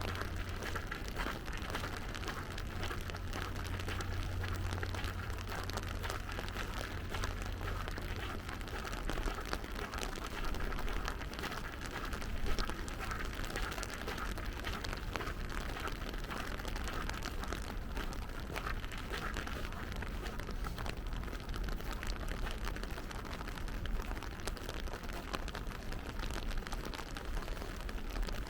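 Steady rain falling, a continuous patter of drops, with a low hum in the first third.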